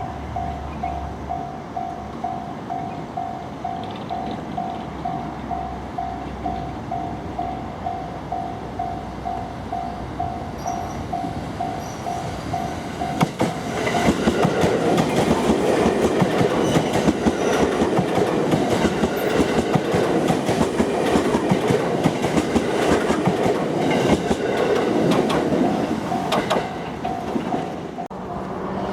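A Japanese level-crossing warning bell dings in a quick, even rhythm. About a third of the way in, a JR 227 series electric train passes over the crossing with loud wheel clatter that drowns the bell. Near the end the clatter fades and the bell is heard again.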